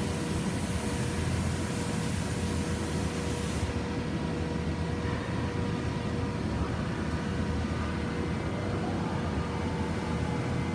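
Lucas Precision floor-type horizontal boring mill running under power: a steady low machine hum with a few held tones. A high hiss stops about four seconds in, one tone drops out a few seconds later, and a short rising whine comes in near the end.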